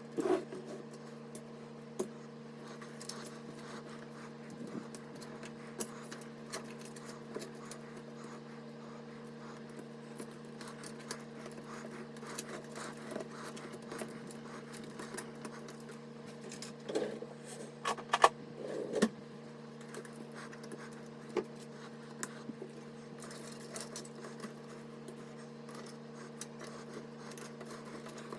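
Scattered clicks, light knocks and scrapes of computer parts and small tools being handled, with a cluster of louder knocks a little past halfway, over a steady low hum.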